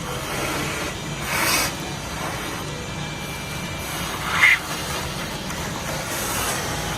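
Shop vacuum running steadily, cleaning debris out of a Pontiac 400 engine block after a stuck plug has been broken through. It gives two brief louder rushes, about a second and a half in and again near the middle, as the nozzle pulls debris in.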